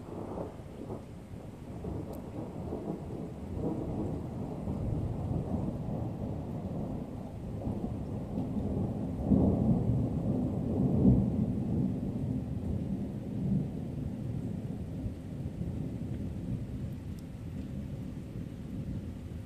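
A long roll of thunder that builds from the start, swells loudest about halfway through with two heavier peals, then rumbles away toward the end.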